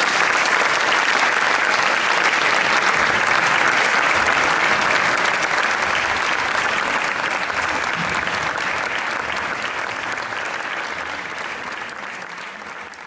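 Audience applauding. It starts suddenly at full strength and fades out gradually over the last several seconds.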